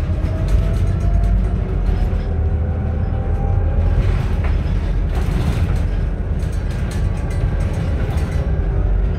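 Inside a Scania Citywide LF natural-gas city bus on the move: a steady low engine and road rumble, with a drivetrain whine that rises slowly in pitch and then falls, and scattered rattles and clicks from the cabin.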